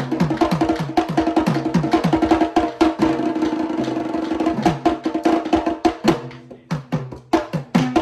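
Sri Lankan traditional drum ensemble playing a fast, dense rhythm, with deep drum strokes that drop in pitch. A little after six seconds in, it thins to sparser, separate strokes.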